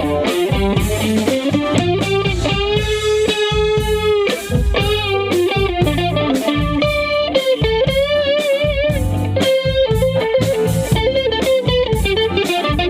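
Electric guitar playing a lead line of held notes with vibrato, notably around three and eight seconds in, over a steady drum beat and bass.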